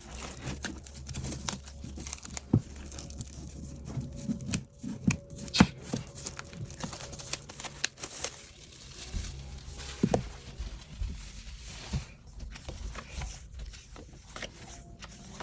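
An album's sealed inner pack being torn open and handled, with paper and plastic tearing, rustling and crinkling and scattered sharp clicks and taps.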